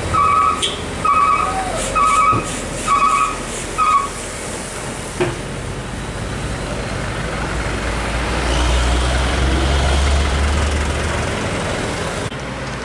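Heavy diesel truck running through a bend, with its low engine rumble swelling about eight seconds in. In the first four seconds a string of about seven short beeps at one steady pitch sounds over it, roughly one every half second.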